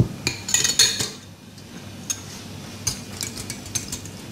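Wire whisk and glass mixing bowls clinking: a quick cluster of ringing clinks in the first second, then lighter scattered taps as egg is poured into milk and whisked.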